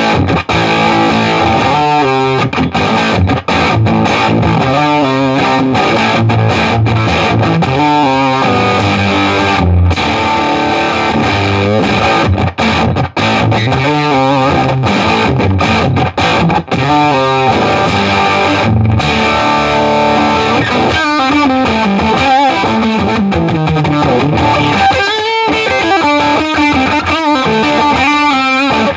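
Electric guitar played through a Bearfoot FX Face Bender fuzz pedal, switched on, giving a thick fuzzy tone. Sustained chords ring with a few short breaks, then about two-thirds through the playing turns to single-note lines.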